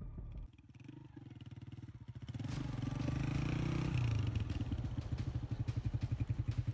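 Honda motorcycle's single-cylinder engine pulling away. It grows louder over a couple of seconds, then runs along steadily with a rapid, even beat.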